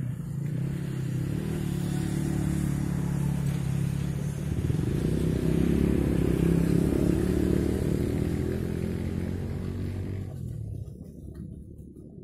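A small motor vehicle's engine runs steadily, growing louder toward the middle and fading away near the end.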